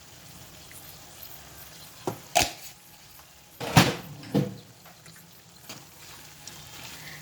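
A spoon knocking against a cooking pan four times, about two seconds in, the loudest near the middle, over a steady faint sizzle of masala frying in oil.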